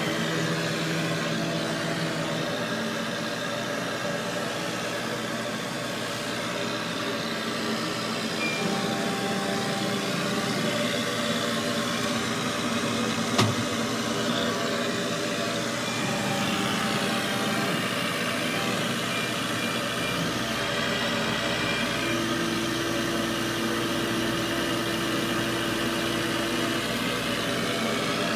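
Steady drone of a CO2 laser engraver's ventilation fan running, with one sharp knock about halfway through as the wooden board is set down on the machine's bed.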